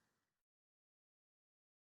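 Near silence: the sound track drops out completely, with no audible sound.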